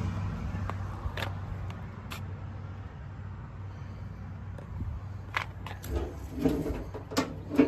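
A vehicle's engine running as a steady low hum that fades away over the first second or two, followed by scattered sharp metallic clicks and knocks that come thicker near the end.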